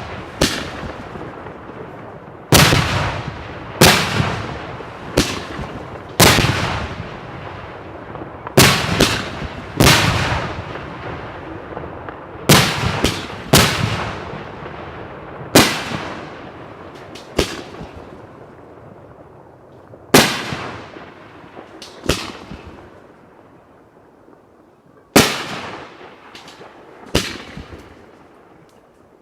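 Aerial firework shells bursting one after another at irregular intervals: sharp, loud bangs, each trailed by a rolling echo. They thin out and grow quieter for a few seconds near the end, then one big bang follows.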